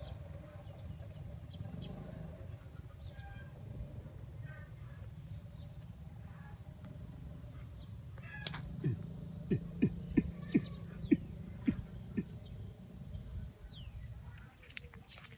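A chicken clucking: a run of seven or eight short, low clucks about half a second apart, starting about halfway through, over faint outdoor background with small birds chirping.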